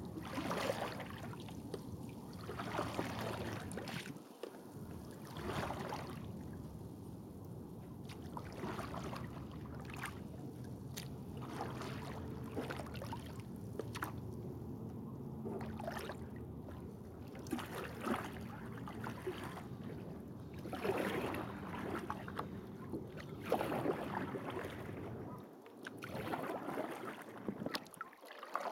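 Double-bladed kayak paddle strokes in calm water: a splash and trickle as each blade dips in and lifts out, recurring every two to three seconds, with water sloshing against the hull of a plastic sit-on-top kayak.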